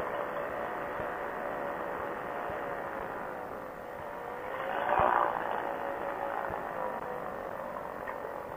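Quicksilver Sprint ultralight's engine running as it rolls down the runway. Its note wavers and climbs briefly about five seconds in, then settles back.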